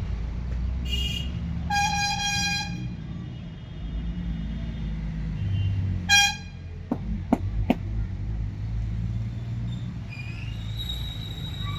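Vehicle horns honking in street traffic: a short toot about a second in, a longer honk around two seconds, and another short toot around six seconds, over a steady low traffic rumble. A few sharp clicks come around seven seconds.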